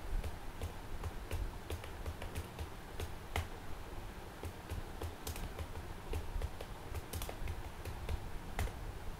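Typing on a computer keyboard: irregular keystroke clicks, a few a second, over a low background rumble.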